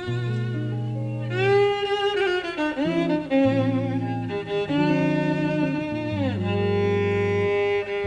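Jazz violin playing a slow melody of long held notes that slide up and down in pitch, over double bass and guitar accompaniment.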